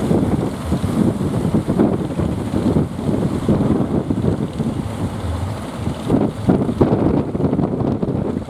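Wind buffeting the microphone, a loud, rough rumble that rises and falls, with the sea at the harbour mouth beneath it.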